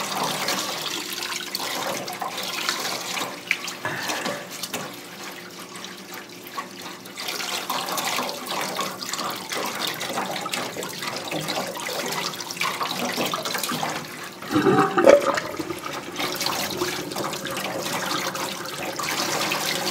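Kitchen tap running into a stainless steel sink while a gutted trout is rubbed clean under the stream, water splashing off the fish and hands. A brief louder sound breaks in about three-quarters of the way through.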